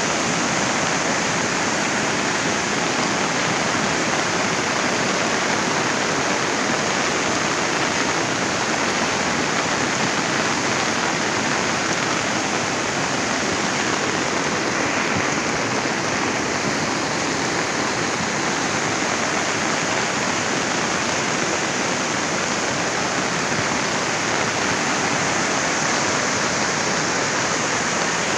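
Floodwater rushing steadily, a dense, unbroken wash of water noise.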